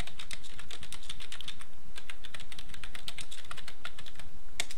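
Computer keyboard typing, a fast, steady run of key clicks as a line of text is typed.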